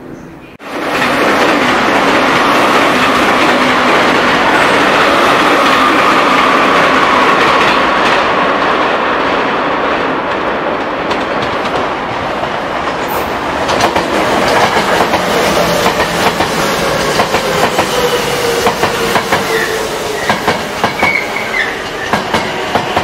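Tokyo Metro 6000 series electric train running past: a steady rumble with a drawn-out whine, starting abruptly about a second in. From a little past halfway, a run of sharp clicks as the wheels clatter over the rail joints.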